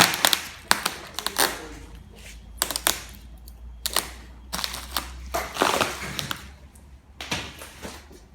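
Irregular sharp clicks and knocks with brief rustles, from objects being handled.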